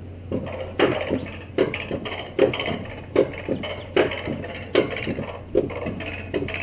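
Alpine coaster sled running fast along its metal track, its wheels clacking and rattling in a steady rhythm of about one sharp knock every 0.8 seconds over a continuous rushing rumble.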